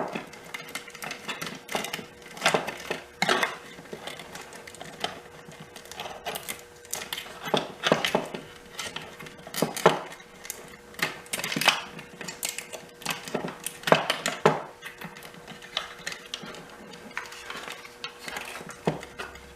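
Irregular clicks, clinks and knocks of hand tools against small metal parts as an electrical drive assembly is taken apart, with a faint steady hum underneath.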